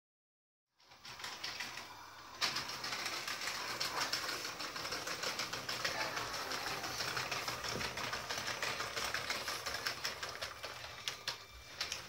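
Remote-control LEGO trains running on plastic track: a dense, fast clicking rattle of the wheels over the track. It starts about a second in and grows louder a moment later.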